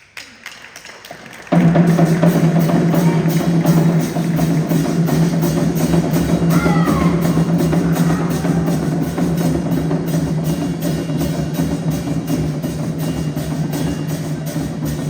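Comparsa percussion band drumming a fast, even beat, kicking in suddenly about a second and a half in.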